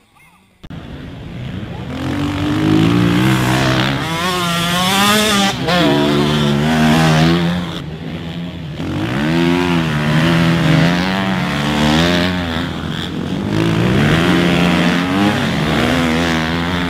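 Small motocross bike engines revving hard as the bikes race through the course, with the pitch climbing and dropping again and again as they accelerate and shift; several bikes overlap. The sound starts abruptly about half a second in.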